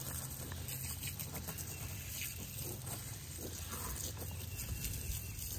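Steady outdoor background noise with a low hum, and a few faint chicken clucks.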